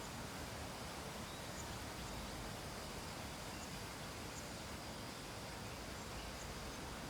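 Steady background hiss with a faint high-pitched whine and a few faint, scattered ticks.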